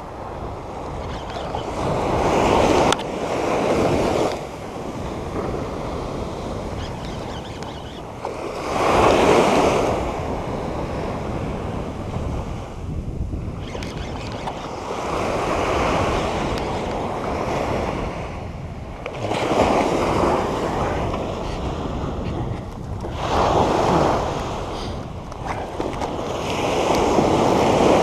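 Ocean surf breaking on a sand beach, the wash swelling up and falling back every few seconds, with wind rumbling on the microphone.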